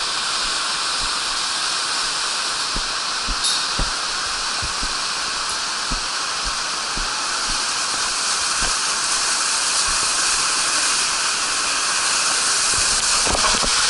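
Steady rushing hiss of water running down a water slide, with scattered soft low thumps, growing a little louder near the end.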